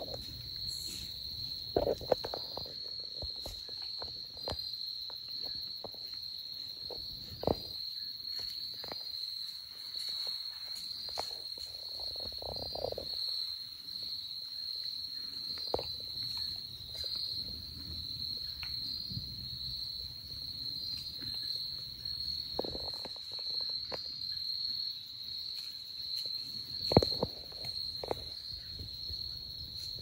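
A steady, high-pitched chorus of insects droning in the woods. It is broken by scattered snaps and rustling crunches in dry fallen leaves, the loudest a little before the end.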